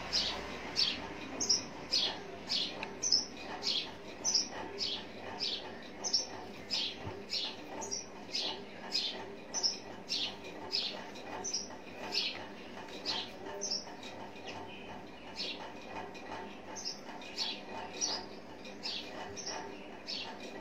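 Fine-tip drawing pen scratching and squeaking on smooth synthetic paper in short strokes, about two a second, as small mandala petals are inked.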